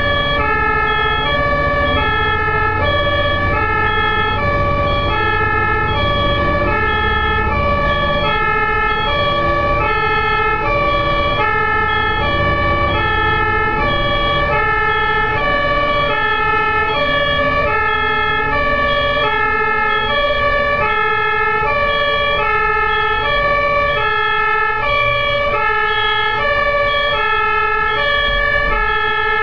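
Ambulance two-tone siren sounding continuously, alternating evenly between a high and a low note about every half second, over low road rumble.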